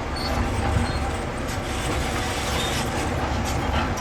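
Heavy earthmoving machinery running: a steady diesel rumble with a few short, high metallic squeals.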